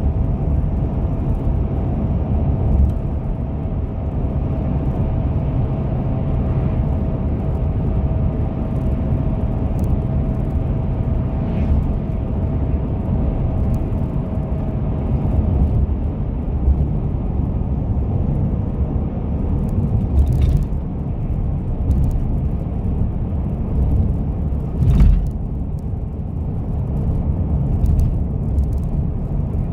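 Car driving on a paved road, heard from inside the cabin: steady low engine and tyre rumble. A faint steady whine fades out about halfway, and there are a few light knocks, the strongest near the end.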